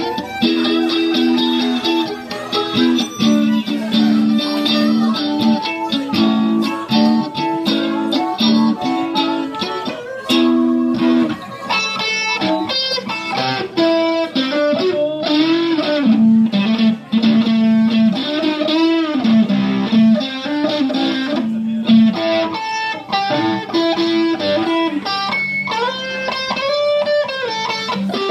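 Live blues instrumental: an electric guitar and a harmonica played into a vocal microphone, with held notes and notes bent up and down.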